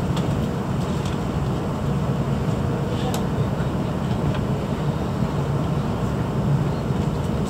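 Steady low rumble of a Hokuriku Shinkansen train running, heard from inside the passenger cabin.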